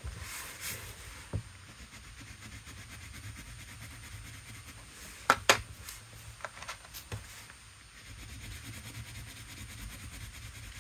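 Watercolour crayon rubbing faintly on watercolour paper as small colour swatches are drawn, with a few sharp clicks of crayons being taken from and put down by a plastic blister tray, a cluster of them about five to six seconds in.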